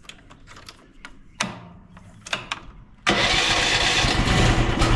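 A few clicks and short knocks, then the AGT DM12X-C mini excavator's small petrol engine starts on its electric starter about three seconds in and keeps running loudly and steadily.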